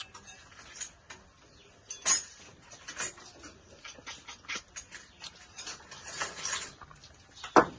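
Sucking cooked water snails out of their shells: a series of short, sharp slurps, the loudest one near the end.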